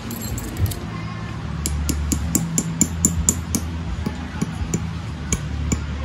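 Metal tent stakes clinking against each other as they are picked out of a pile by hand: a quick run of light clinks, thinning out toward the end, over a low steady hum.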